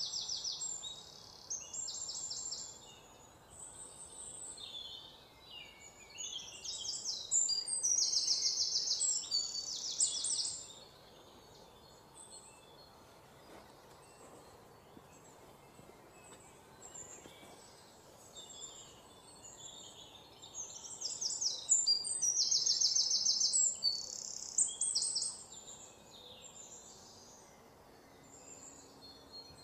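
Birds singing: bursts of high, rapid trilled calls, loudest near the start, from about 7 to 10 seconds in and from about 21 to 25 seconds in, with scattered chirps between.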